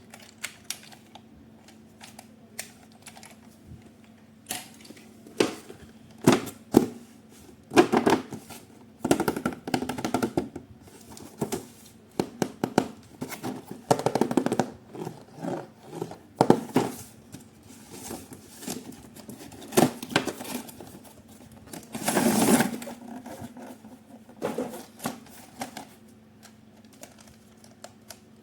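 Irregular clicks, taps and short rustles of hands handling plastic toy parts and packaging, with a longer rustling burst about 22 seconds in.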